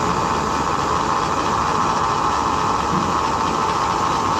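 Manual milling machine running, a steady machine whir with a constant hum.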